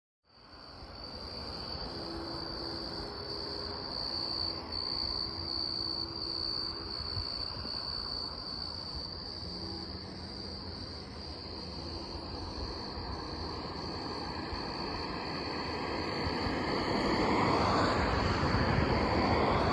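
Insects trilling steadily on one high note, with a distant Nathan K5HL locomotive horn carrying over faintly in several blasts of a few seconds each. A rushing noise swells near the end.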